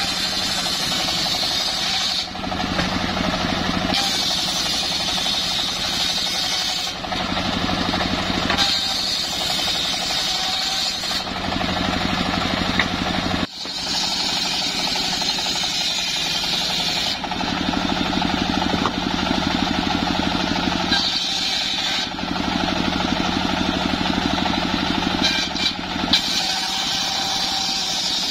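A homemade circular saw bench rips an old mahogany log lengthwise. The big blade's cutting noise rises and eases in turn every few seconds over the steady drone of the saw's drive, with a brief break about halfway through.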